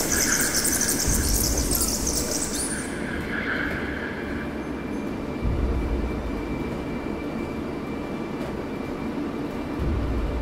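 Double-decker bus running on the road, heard from the upper deck as a steady low rumble with a few low thumps. A loud hiss covers the first three seconds and cuts off suddenly.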